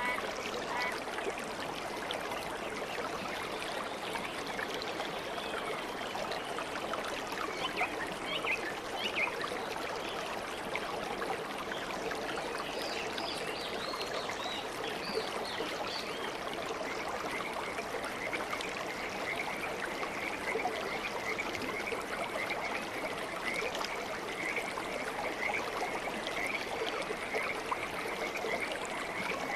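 Aquarium water trickling and bubbling steadily in a goldfish tank, with small bubbly pops scattered through it.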